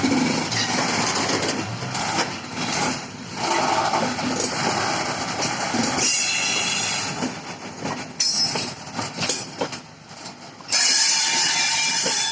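Loaded Eas-z open coal wagons rolling past: wheels clattering and clanking over the rail joints. The noise dips and surges as the cars go by, loudest again near the end.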